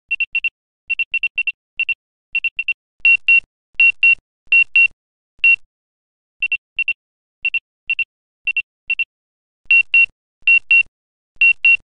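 Obstacle-proximity warning beeps from the Autel Nano+ drone's flight app, warning that the drone is too close to an obstacle. The beeps are short, high and single-pitched, mostly in quick pairs, and repeat with short gaps. They are louder in the middle and near the end.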